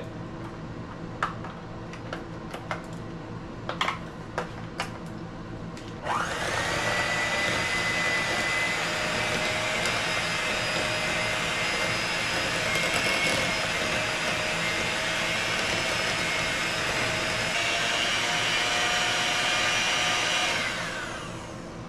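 A few light clicks and knocks, then about six seconds in an electric hand mixer starts. Its motor whines steadily as the beaters work a thick mix of vegetable shortening and diatomaceous earth in a glass bowl, and it winds down and stops just before the end.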